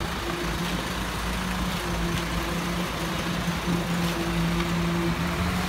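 Concrete mixer truck running with a steady hum and low rumble while it discharges concrete, with a few faint scrapes of tools in the wet concrete.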